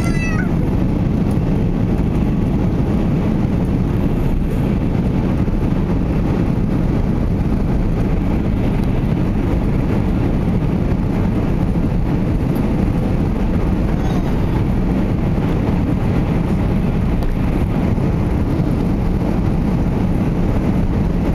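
Airbus A340-600 cabin noise heard at a window seat over the wing: a steady, loud rumble of the four Rolls-Royce Trent 500 engines and the airframe as the airliner rolls along the ground, holding level with no spool-up.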